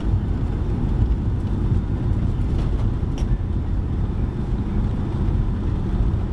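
Steady low rumble inside the cabin of a Boeing 757-200 rolling on the ground after landing. It is a mix of engine noise and the rumble of the wheels.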